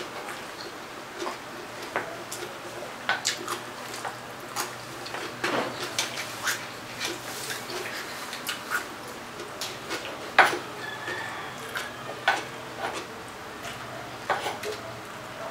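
Eating sounds: chewing and wet mouth smacks, with scattered clicks and taps of a spoon and fingers on the plate and rice. The loudest click comes about ten seconds in.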